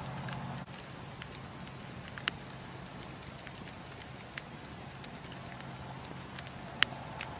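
Wood campfire burning, with scattered sharp crackles and pops from the burning logs and one loud pop near the end, over a low steady hum that drops out about a second in and returns later.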